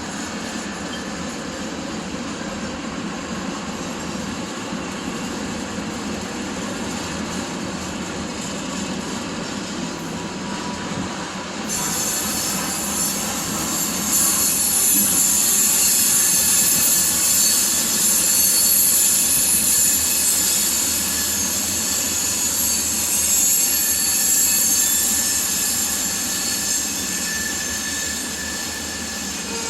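Norfolk Southern freight train's cars rolling past with a steady rumble. About twelve seconds in, a high-pitched hiss and squeal from the wheels comes in suddenly; it is loudest in the middle and eases toward the end.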